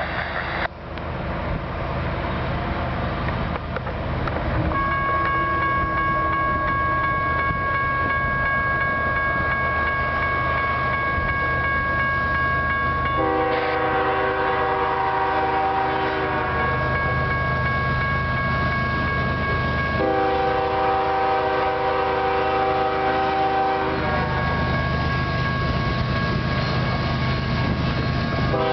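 Railroad crossing signal bell starts ringing about five seconds in and keeps on, over the low rumble of an approaching diesel freight train. The lead locomotive's air horn sounds two long chord blasts, a third beginning right at the end: the start of the grade-crossing horn signal.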